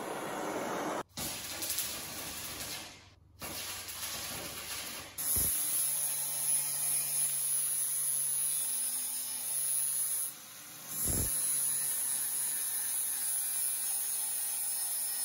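Gas torch hissing for the first few seconds, cut off twice briefly. From about five seconds in, an angle grinder with an abrasive disc grinding a weld bead flush on a metal stove top: a steady high hiss over a low hum, dipping briefly near ten seconds.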